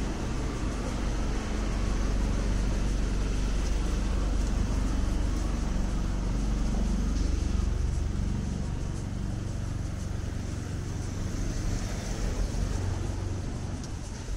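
Street traffic: a motor vehicle's engine rumbling close by, growing louder over the first couple of seconds and fading gradually toward the end.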